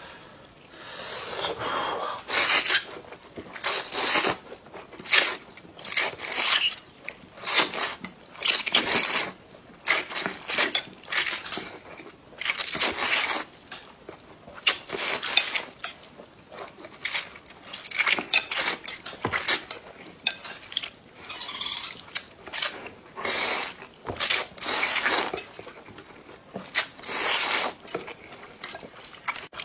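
A man loudly slurping Northeastern Chinese cold noodles in broth off chopsticks, in many short noisy slurps with brief pauses between.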